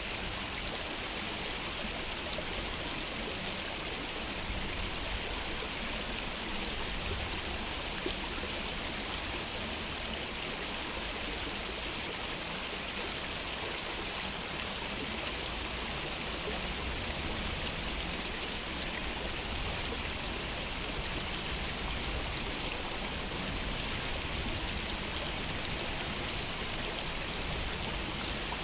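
Stream flowing steadily: an even, unbroken rush of water.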